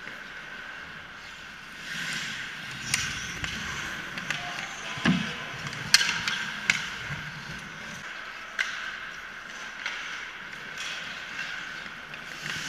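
Ice hockey play at close range: skates scraping and carving the ice, with a few sharp clacks and knocks of sticks and puck. The loudest clack comes about six seconds in, as players crowd the net.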